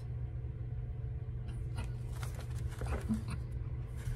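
Soft paper rustling and handling noises as the pages of a coloring book are turned, strongest around the middle, over a steady low hum.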